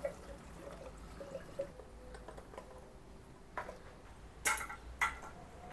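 Petrol pouring faintly from a plastic jerry can through its spout into a motorcycle's fuel tank, with a few short sharp clicks of plastic in the second half.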